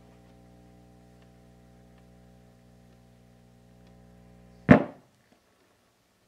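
Faint steady hum from the 8-tube Westinghouse Columaire 801 radio's speaker. About three-quarters of the way through, a phone plug is pushed into the radio's jack with one loud pop, and the hum cuts off.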